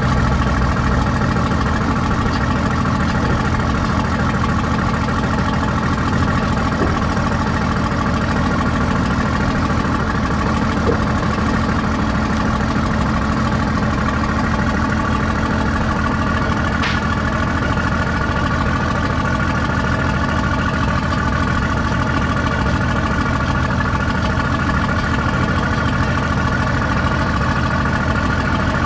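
Large engine running steadily at low speed: an even, unbroken drone with a deep hum.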